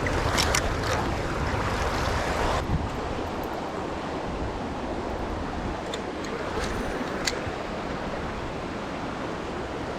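Creek water rushing steadily, louder for the first two and a half seconds and then settling to an even flow, with a few faint ticks.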